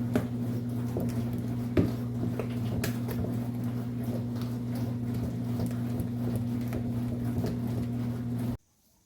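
A small electric motor hums steadily, with light clicks and knocks over it, then stops abruptly near the end.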